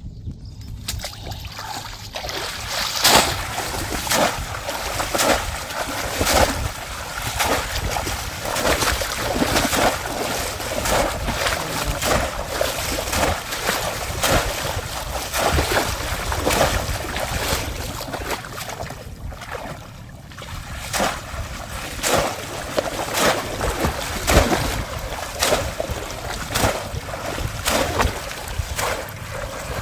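Shallow water splashing and sloshing in frequent, irregular splashes as a bamboo polo plunge trap is worked through the water, with a brief lull about two-thirds of the way in. A steady low rumble runs underneath.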